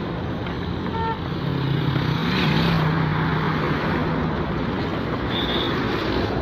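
Road traffic passing close by: a vehicle's engine drone and tyre noise swell and fade as it goes past, over steady traffic noise, with a short beep about a second in.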